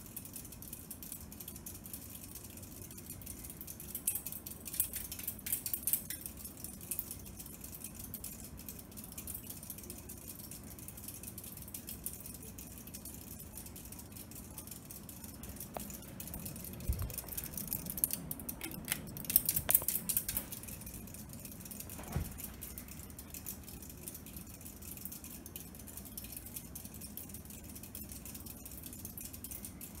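Kenmore ceiling fan running at speed, with a steady light rattling from the spinning blade assembly. The rattling grows louder for a few seconds about four seconds in and again past the middle, with a couple of low thumps.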